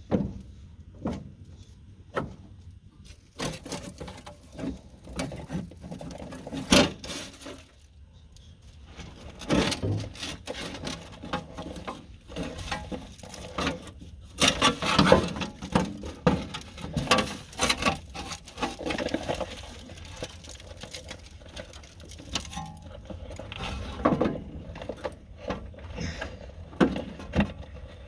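Hand tools working on the metal floor cover of a backhoe cab: irregular clicks, clanks and knocks as the cover is unbolted and taken off to get at the throttle linkage.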